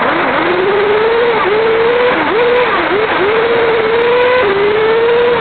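Kyosho RC model car's motor running at speed, its pitch climbing and dropping back several times as the throttle is worked, then holding higher near the end, over a steady rushing noise.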